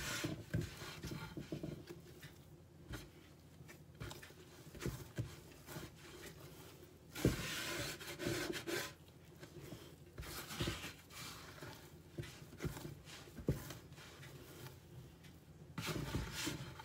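Yeast bread dough being kneaded by hand in a wide shallow bowl: irregular rubbing and pressing, with dull thumps as the dough is pushed and folded against the bowl.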